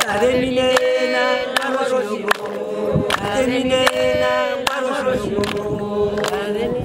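Group of Herero women singing together in chorus without instruments, holding long notes, with handclaps on a steady beat about once every 0.8 seconds.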